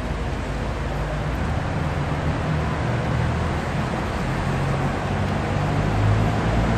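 Steady rushing noise of a thunderstorm over a city, with a low rumbling underneath that grows a little louder toward the end.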